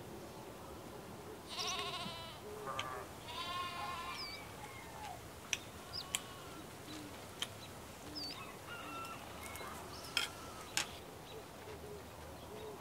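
Small livestock bleating: two wavering bleats in the first few seconds, followed by a few sharp clicks.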